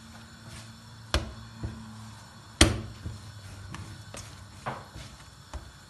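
Egg-and-flour pastry dough being kneaded by hand on a granite countertop: a few uneven thumps and slaps as it is pressed and folded, the loudest about two and a half seconds in.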